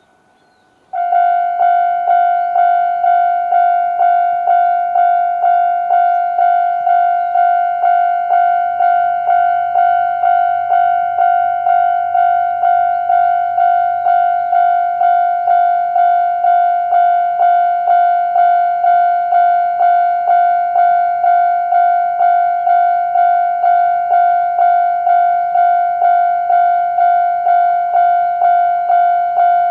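Japanese railway level-crossing alarm of the older standard electronic type. It starts about a second in and rings a loud, steady, repeating ding about one and a half times a second, each strike fading before the next. This is the warning that a train is approaching and the crossing is closing.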